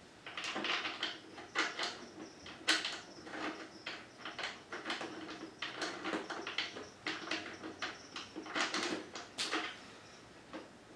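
Irregular clicks, knocks and scrapes of parts and hand tools being handled while a slip-on exhaust muffler is fitted to a dirt bike, the sharpest knock about three seconds in. The handling dies away near the end.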